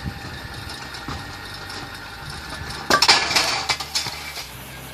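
Wood-splitting machine running with a steady low hum, with a loud burst of clattering and clinking about three seconds in.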